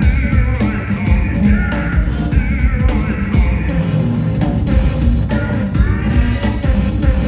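A live rock band playing loudly, with heavy bass, a steady drum beat and singing in places.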